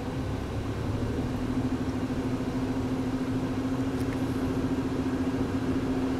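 Car driving along at a steady pace, heard from inside the cabin: engine and road noise with a steady low hum.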